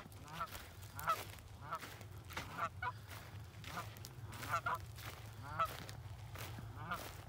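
Canada geese honking repeatedly: short, nasal honks come in irregular runs, often two or three in quick succession, a dozen or so in all.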